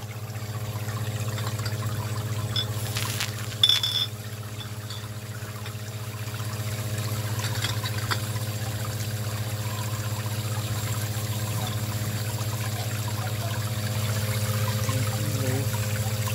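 A 1/4 HP Barracuda submersible utility pump hums steadily in a sink of water, driving jets from a homemade bottle-washer manifold up into upturned glass beer bottles, with water splashing and trickling back down. A brief sharp clink comes about four seconds in.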